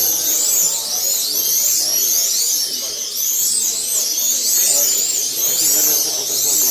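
Several 1/32 scale Eurosport slot cars racing, their small electric motors whining high and rising and falling over and over as the cars accelerate and brake around the track.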